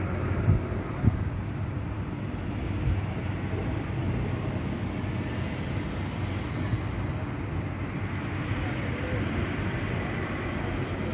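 Steady low rumble of distant city traffic, with two short knocks about half a second and a second in.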